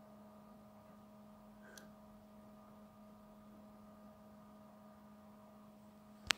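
A faint steady low hum with a few quiet held tones, the dying tail of the ambient background music. A sharp click comes near the end.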